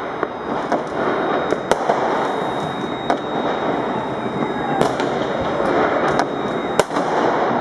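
Many fireworks and firecrackers going off at once: a dense, continuous crackle and rumble of bangs, with sharper single bangs standing out about once a second.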